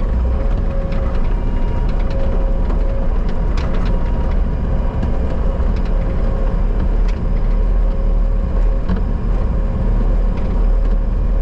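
Bobcat skid steer's engine running steadily under work, a loud low rumble with a steady hum over it and a few light knocks.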